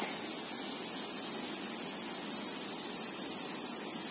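A chorus of cicadas in the trees, a dense, steady, high-pitched buzz that holds at the same level throughout.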